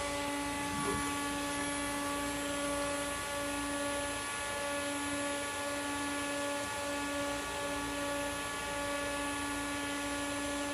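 Steady electrical hum of running computer equipment: a pitched drone with several overtones over an even hiss.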